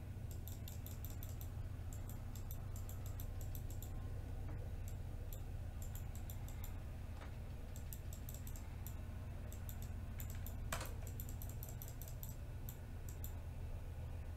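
Typing on a computer keyboard: several short runs of rapid, faint key clicks, with one louder click about three-quarters of the way through. A steady low hum runs underneath.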